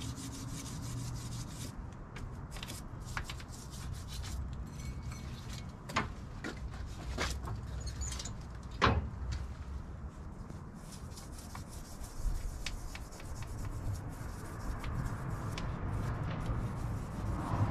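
Brass wire brush scrubbing rust and stains off a Hardinge HC chucker lathe, wet with Hoppe's No. 9 solvent, in scratchy strokes that come and go. Several sharp knocks of metal parts or tools, the loudest about nine seconds in, over a low steady rumble.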